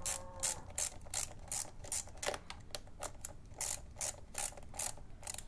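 Ratchet clicking in a steady rhythm, about three clicks a second, as the new lever's pivot bolt and nut are tightened with the bolt counter-held by an Allen key; the clicking stops just before the end.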